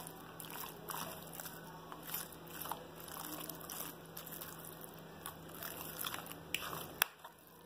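A fork turning seasoned raw beef steaks in a plastic bowl: faint, wet squishing of the meat with scattered light clicks, and one sharper click about seven seconds in.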